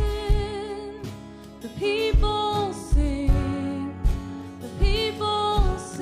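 Live worship band playing: a woman singing the lead line with vibrato over guitars, electric bass and a drum kit whose kick drum thumps under the song.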